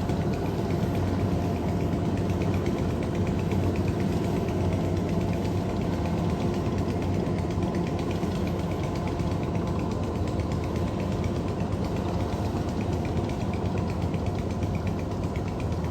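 Kubota DC93 combine harvester's diesel engine and machinery running steadily as it cuts rice in a waterlogged paddy, with a faint rapid ticking over the even hum.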